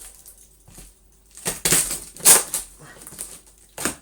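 Cardboard packaging boxes being pulled apart and crushed flat by hand. It starts quietly, then comes a series of loud rustling, crackling bursts from about a second and a half in, with another near the end.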